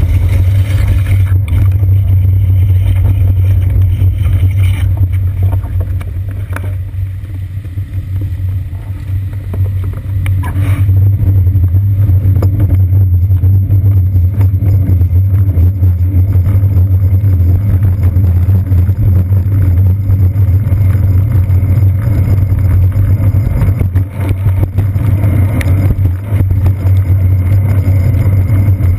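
Loud, steady low rumble picked up by a seat-post-mounted GoPro Hero 2 as the bicycle rides along wet city streets: road vibration and wind on the camera housing. It eases for a few seconds about a quarter of the way in, then returns.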